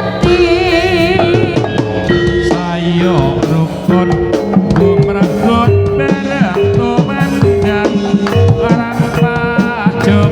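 Jaranan sentherewe music: drums and percussion beating steadily under a pitched melody that wavers with vibrato about a second in.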